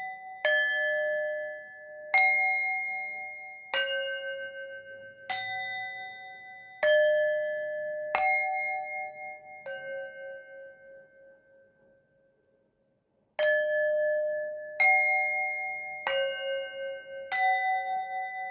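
Tuned chimes struck one at a time at different pitches, making a slow melody. Each note rings out and fades, about one strike every one and a half seconds, with a pause of a few seconds about halfway through.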